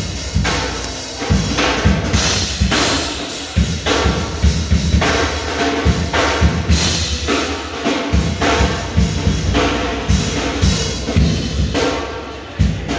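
Music with a drum-kit beat, the drum strokes coming several times a second.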